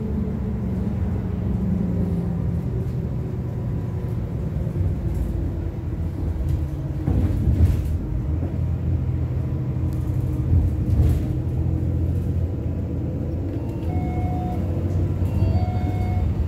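Steady low drone of a bus engine and rumble of its tyres on the road, heard from inside the moving bus, with a couple of louder jolts about halfway through.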